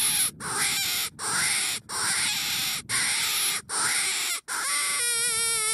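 Homemade predator call, a rubber dog-toy squeaker, blown by mouth in a run of short raspy squealing cries with brief breaks between them. The last cry draws out into a clearer wavering tone that drops at the end. The call is meant to bring in coyotes.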